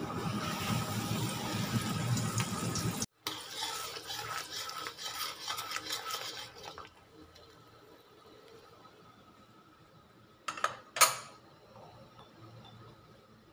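Coated chicken sizzling as it goes into hot oil in a wok, then, after a brief cut, garlic and sauces sizzling in the wok with a spatula stirring and crackling. The sizzle stops about seven seconds in, and near the end come two sharp clinks.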